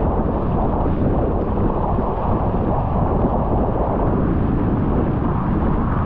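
Steady, low-heavy rush of wind buffeting the microphone, mixed with water noise, aboard a Nacra 20 racing catamaran sailing fast on a beam reach.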